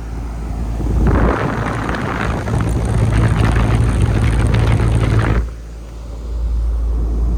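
2008 Payne air conditioner condensing unit running just after start-up, with a steady low hum. About a second in, a loud rushing of air comes in over it and cuts off suddenly about four seconds later.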